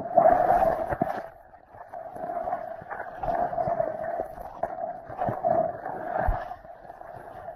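Muffled rush of water past an action camera held underwater beside a moving kayak, heard through the camera's waterproof housing. It swells and fades every second or so, with a few dull knocks.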